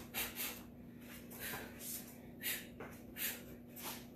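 A kickboxer's short, sharp exhales and breaths, several in quick succession as she throws kicks and punches, over a faint steady hum.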